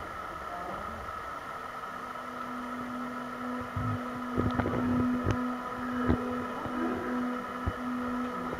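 Dancers' feet landing and stepping on a studio dance floor: several irregular thuds between about four and eight seconds in, over a steady low hum and room hiss.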